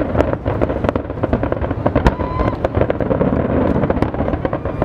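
Aerial firework shells bursting in a dense, continuous barrage: rapid overlapping bangs and crackle with no gaps.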